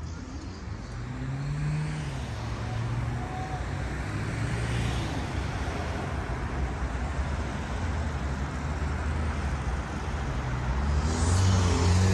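Road traffic: cars driving past, engines rising in pitch as they accelerate, with one vehicle passing close and louder near the end.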